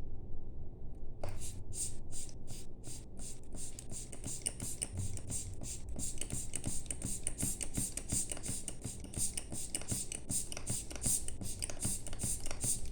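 Air blower puffing air in quick repeated bursts, at first a few separate puffs, then a fast run of them, drying a freshly cleaned watch part.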